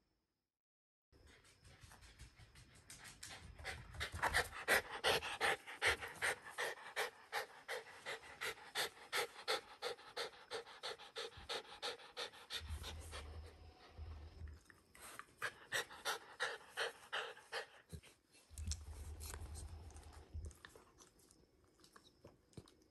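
Shiba Inu panting rapidly, about three breaths a second, loudest in the middle with a couple of short breaks. A low hum comes in twice, about two seconds each time.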